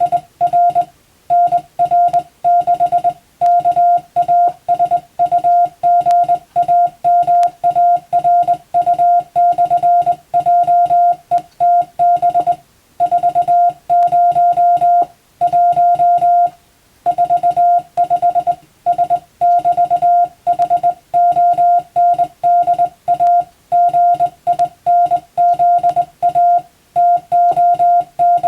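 Morse code (CW) tone of about 700 Hz keyed on and off in quick dots and dashes, with short gaps between characters and a couple of longer pauses between words. It is English-text telegram practice being sent.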